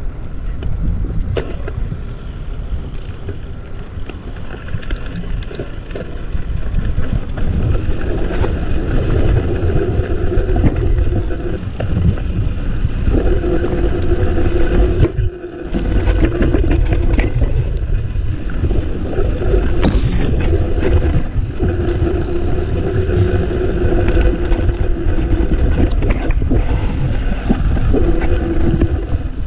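Yeti SB 4.5 mountain bike riding fast down a dirt trail, heard from the bike-mounted GoPro: wind buffeting the microphone, a low rumble of tyres over dirt, and the bike rattling and clicking over bumps. A steady hum comes and goes in stretches, and a brief high falling squeal sounds about two-thirds in.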